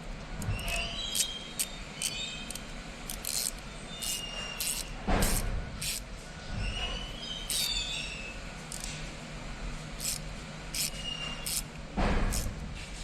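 Irregular sharp metallic clicks and clinks from ratchet parts and hand tools being handled, some with a brief ringing, and two duller knocks about five and twelve seconds in. A steady low hum runs underneath.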